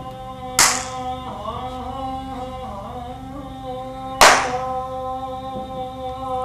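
Two sharp hand claps, one just over half a second in and another about four seconds in, over a man's voice holding a long, steady chanted note. A second voice line wavers up and down between the claps.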